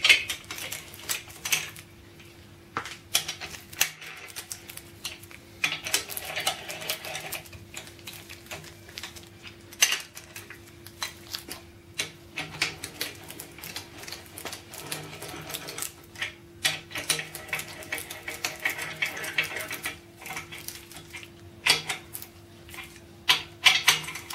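Metallic clicking and clinking of a hand-turned socket wrench and steel bolts as the main bearing cap bolts are run down into a Ford 351 Cleveland V8 block. The clicks come in irregular clusters over a faint steady hum.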